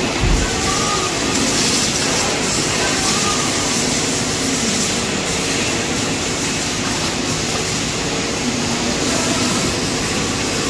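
Pressure-washer jet spraying water over a car's body: a loud, steady hiss.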